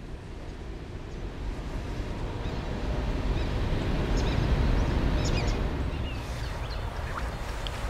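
Low rumble of a CSX train going by, swelling to its loudest about halfway through and then easing off, with wind on the microphone. A few faint high chirps come in the middle.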